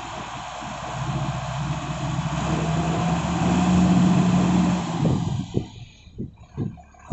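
Isuzu 6BG1 six-cylinder diesel of a Dalian CPCD60FA forklift running, revving up and rising in pitch over a few seconds, then dropping back about five seconds in. A few irregular low thumps follow near the end.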